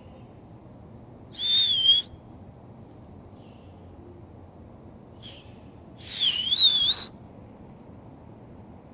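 Someone whistling twice, a short whistle and then a longer one that wavers up and down in pitch.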